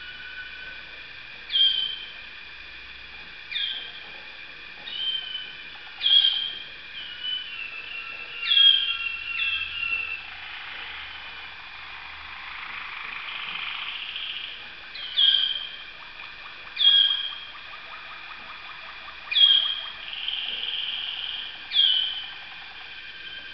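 Waterslager canaries singing: short loud phrases of high notes, each opening with a quick falling note, come about every two seconds, with a longer, softer, continuous passage of song about halfway through.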